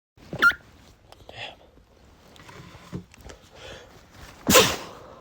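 A man sneezing: a sharp catch of breath with a rising vocal pitch near the start, a few soft breathy inhales, then one loud explosive sneeze near the end.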